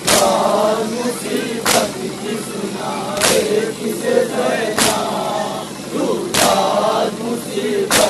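A group of men doing matam, beating their chests in unison: a loud, sharp collective slap about every second and a half, six in all, with many male voices chanting between the strokes.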